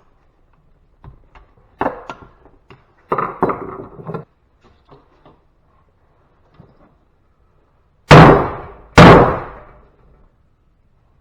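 Light knocking and clattering of metal scrap, then two loud, heavy hammer blows about a second apart, each ringing away: a sledgehammer smashing electrical outlets.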